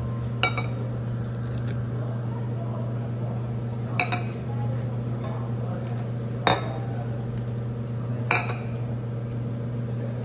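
Stainless steel milk-frothing pitchers set down one by one on a stone countertop: four sharp metallic clanks with a brief ring, the second a quick double, over a steady low hum.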